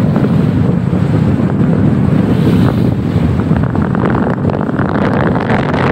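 Loud wind buffeting the microphone on a motor yacht under way at sea, over the low rumble of the boat and the water. The gusts get more ragged in the second half.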